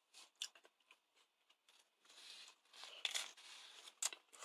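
Someone chewing a mouthful of pizza, a faint run of irregular mouth and crunching noises.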